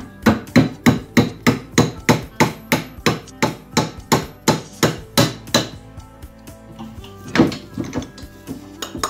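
Hammer tapping a freshly turned part into its seat with about eighteen quick, even blows, roughly three a second. After a pause of about two seconds comes one harder blow, then a few lighter taps.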